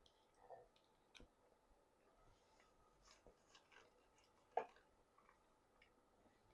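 Near silence with faint, scattered mouth clicks and ticks from chewing, and one sharper click about four and a half seconds in.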